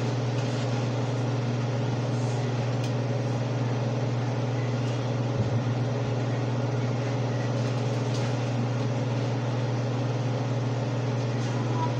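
Steady hum of a vent fan over the stove running, with a brief double knock about five and a half seconds in.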